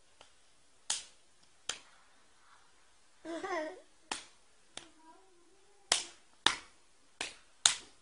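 A small child's open hand slapping a man's cheek: about eight sharp smacks, spaced out at first and coming faster near the end. A child's voice cries out briefly about three seconds in.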